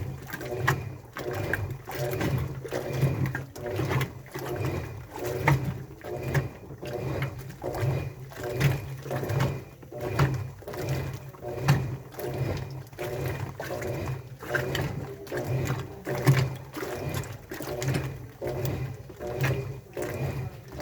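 Washing machine running a wash cycle: a steady motor hum, with laundry and water sloshing and thumping in the drum about once a second.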